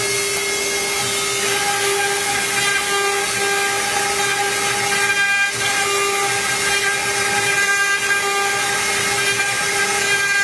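CNC router spindle running at a steady high whine as its bit engraves PVC, with a constant hiss of cutting. The sound dips briefly about halfway through.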